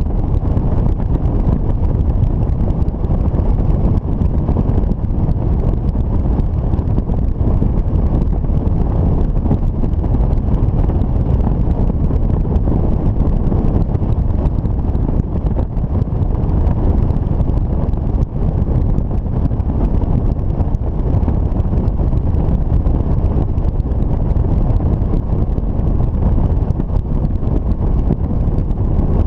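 Steady wind rushing over the microphone of a motorcycle-mounted camera while riding, with the motorcycle's running and road noise underneath.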